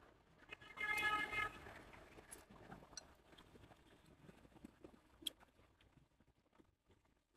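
A vehicle horn toots once, briefly, about a second in. Then faint eating sounds: chopsticks and a spoon clicking lightly against a porcelain bowl of rice porridge, with one sharper click a little past five seconds.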